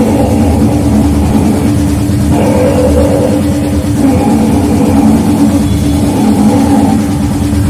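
Harsh noise music: a loud, dense, unbroken wall of noise, heaviest in the low range.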